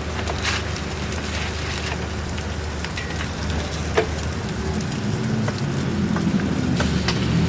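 Burger patties sizzling on a flat griddle, with a few sharp metal clicks, one louder about halfway through, over a steady low hum.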